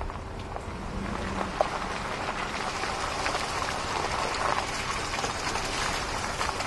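Footsteps squelching and crunching over wet mud and gravel, a dense crackle of small ticks over a faint steady machine hum.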